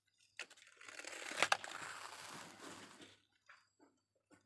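Plastic toy vehicles scraping and rattling against rough wood and sand, with one sharp knock about a second and a half in.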